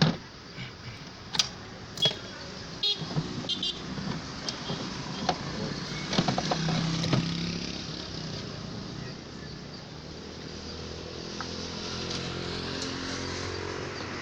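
Mercedes W164's OM642 V6 diesel being started hard: a few clicks first, then the engine churns and catches, settling into a steady run from about ten seconds in. The hard start is a sign of a failed injector nozzle.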